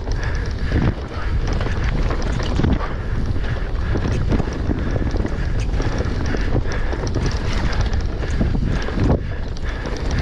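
Wind rushing over an action camera's microphone on a fast mountain bike descent, with a constant rattle of short knocks and clatters from the enduro bike's tyres, chain and suspension over rough trail.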